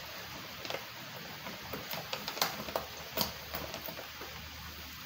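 Scattered small metallic clicks and taps of a bolt being fitted and screwed into the clamp that holds a plastic safety guard on a grass cutter's shaft.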